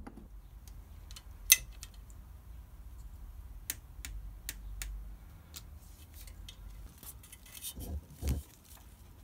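Small torque wrench clicking on a motorcycle's rear brake caliper bleed screw as it is tightened to 6 Nm: scattered sharp metallic clicks, one much louder about a second and a half in, over a low handling rumble. A couple of dull knocks near the end.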